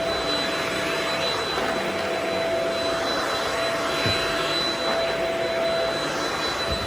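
Vacuum cleaner running steadily: a constant rush of air with a steady motor whine over it.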